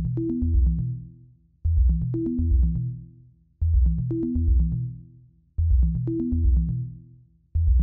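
Electronic background music: a short, deep bass-heavy phrase with a brief higher melody line, repeating about every two seconds, each repeat starting loud and fading away.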